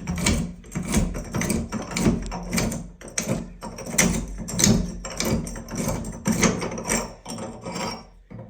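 Old shower faucet cartridge being unscrewed by hand from the valve body in the wall, metal parts clicking and scraping in quick, irregular strokes.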